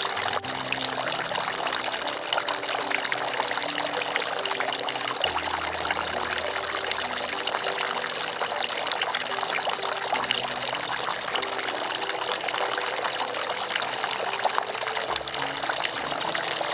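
Water splashing and trickling steadily from a tiered bird bath fountain, its top bubbler spilling over and dripping and streaming down into the pools below.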